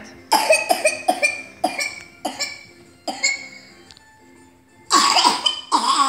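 A young child's paroxysmal dry cough, a rapid run of harsh coughs in the first three seconds, the typical coughing fit of whooping cough (pertussis, confirmed by nasopharyngeal swab). Near the end comes a louder outburst as he starts to cry.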